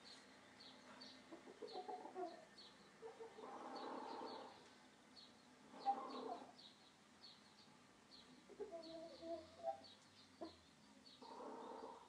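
Faint clucking of chickens in short bursts every couple of seconds, over a small bird's short high chirps repeating two or three times a second.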